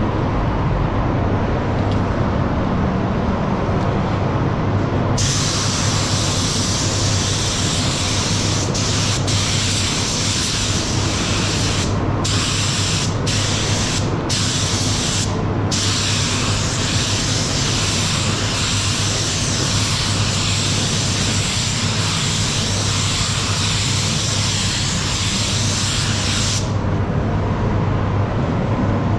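Paint spray gun spraying, a loud hiss of atomising air that starts about five seconds in, breaks off four times for a moment as the trigger is let go, and stops shortly before the end. A steady low hum runs underneath throughout.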